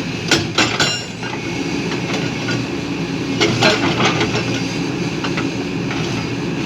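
Diesel engine of heavy earthmoving machinery running steadily, with clusters of sharp metallic clanks, once near the start and again a little past the middle.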